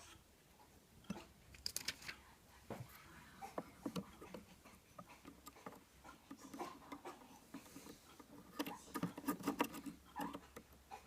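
Scattered light clicks and taps of small hard parts being handled, with faint rustling, thickest about nine seconds in.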